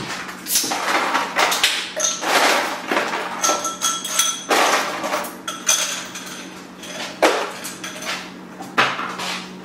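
Kitchen clatter of glassware and dishes being handled: repeated knocks and clinks, a few of them ringing briefly about four seconds in, and a sharp knock about seven seconds in. A steady low hum runs underneath.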